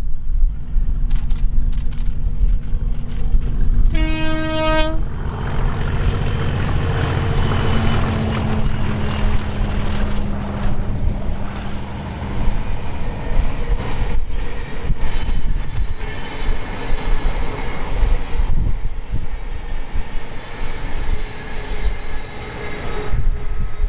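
English Electric Class 37 diesel locomotive passing at line speed with two unpowered Class 322 electric units in tow. It sounds one horn blast of about a second, about four seconds in. Its engine drone drops slightly in pitch as it passes, then gives way to the rumble and clatter of the trailing units' wheels on the rails.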